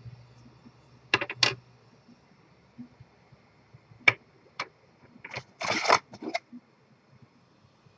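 Sharp plastic clicks as the two detachable antennas of a Linksys WMP600N wireless card are handled, two taps about four seconds in as they are set down on a wooden table, then about a second of rustling scrape from the box's molded cardboard insert being handled.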